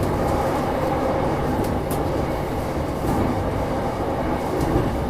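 JR East E233-1000 electric commuter train running on the line, heard from inside the passenger car: a steady rumble of wheels on rail with a few faint ticks.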